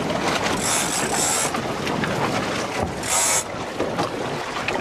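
Boat noise on deck at sea with wind on the microphone, broken by two short bursts of high hiss, about half a second in and about three seconds in.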